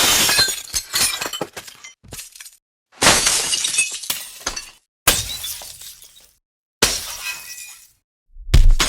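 Window glass struck by a thrown stone and shattering, over and over: a sharp crash then shards tinkling down, about four times roughly two seconds apart, each cut off short, with another break beginning near the end.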